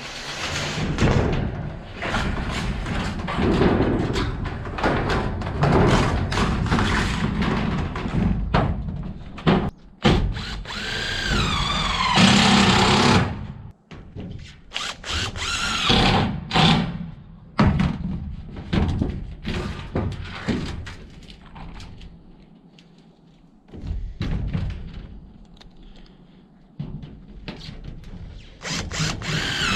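Power drill driving screws through steel roofing sheets in short bursts, its motor whine rising and falling. Knocks and thunks of metal and wood come in between.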